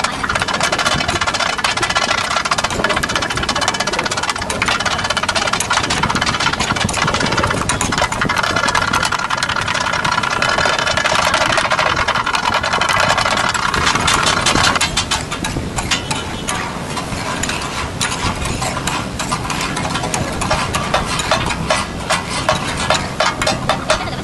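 Rapid metallic clatter of two steel spatulas chopping and scraping on a large flat iron tawa during katakat cooking. About fifteen seconds in it gets a little quieter, and the strikes come through as a sparser, more distinct beat.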